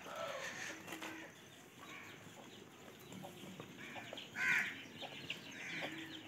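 Chickens clucking on and off, with short scattered calls and one louder call about four and a half seconds in.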